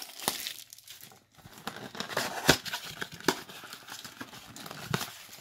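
Trading card pack's foil wrapper being torn open and crinkled by hand: irregular crackles and rustling, with one sharp snap about two and a half seconds in.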